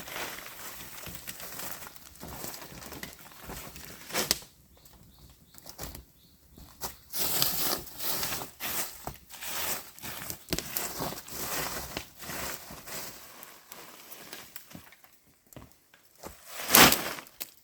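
Irregular rustling and crackling with scattered sharp clicks, and one louder crunch near the end.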